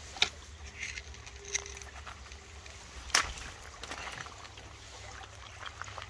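Shallow stream flowing over a gravel bed, with a steady low rumble underneath. A few sharp clicks cut through it, the two loudest just after the start and about halfway.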